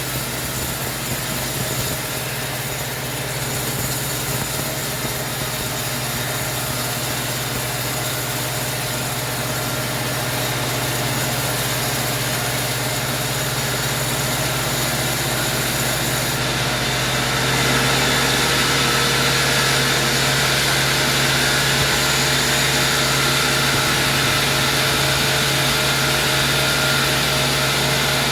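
Sawmill machinery with an engine running steadily and a low, even hum; the sound grows louder and harsher about two-thirds of the way through.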